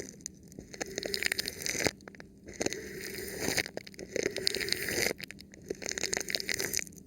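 Thin plastic film stretched over a microphone being rubbed and touched, crinkling and scraping in three long strokes with short pauses between them.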